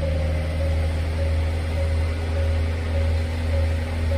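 Diesel engine of a standing KiHa 48 railcar idling: a steady low hum with a slight regular throb.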